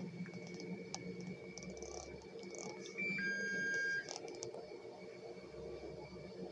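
An electronic medical-equipment beep about three seconds in, typical of a dialysis machine: a short higher chirp, then a steady tone lasting about a second that cuts off sharply. Around it are a few light clicks and rustles as the catheter lines are handled, over a faint steady high tone from the equipment.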